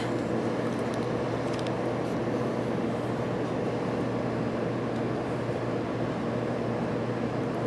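Cabin noise inside an 800 Series Shinkansen as it runs along the line: a steady rumble of wheels and rail with a faint low hum.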